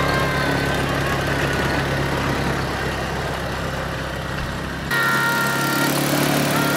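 Small ATV engine running as the quad bike is ridden across a dirt yard, a steady low hum with tyre and wind noise. About five seconds in the sound changes abruptly, the deep hum dropping away and a higher steady whine coming in.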